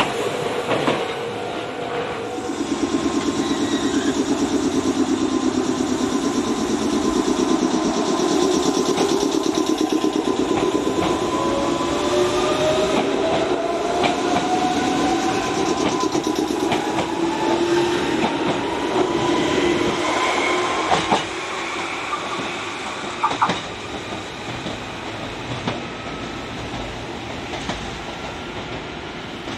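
Meitetsu Seto Line red electric train running with wheel noise, its motor whine rising steadily in pitch as it accelerates. A few sharp knocks come near the end.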